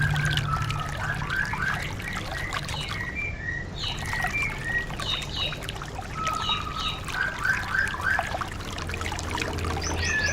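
White-eye (pleci) song: quick strings of short chirping notes broken by a few longer held whistles, over a steady trickle of running water.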